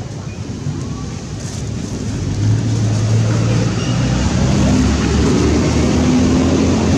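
A motor vehicle engine running steadily, growing louder about two and a half seconds in and staying loud.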